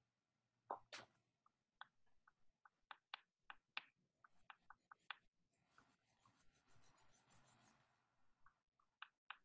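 Drawing pencil scratching on paper, first in a run of short, quick strokes, then in a softer, continuous scratching of shading for about two seconds. Two light clicks near the end.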